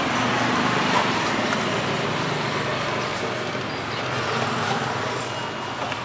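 Road traffic: a motor vehicle's engine running steadily, easing off somewhat in the second half.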